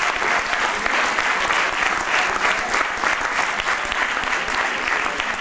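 Audience applauding: many hands clapping in a steady, dense stream.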